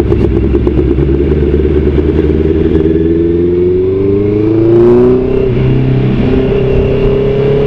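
Motorcycle engine running under way, its pitch rising steadily as it accelerates for a couple of seconds, then levelling off and holding steady a little after halfway.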